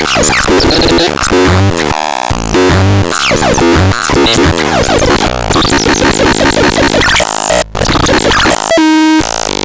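Loud, dense electronic synthesizer music: choppy, glitchy synth sounds over noisy textures, with a brief dropout near the end and then a short held buzzing tone.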